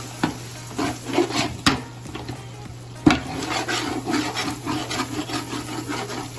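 Long metal ladle stirring and scraping a thick onion-tomato masala around a large aluminium pot, with the ladle knocking sharply against the pot three times. A steady low hum runs underneath.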